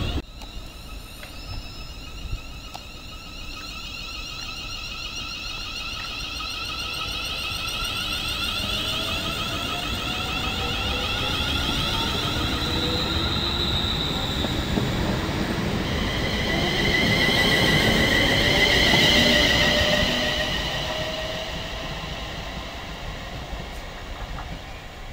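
London Midland Class 350 Siemens Desiro electric multiple unit on the move, its traction inverters giving a whine in several tones that slowly rise in pitch as it accelerates. The whine grows louder, is loudest about three-quarters of the way through, then fades.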